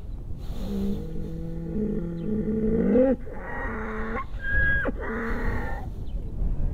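A large farm animal by the road giving a long, loud call in several drawn-out parts, rising near the middle and breaking off, lasting about five seconds. A motorcycle engine runs low and steady underneath.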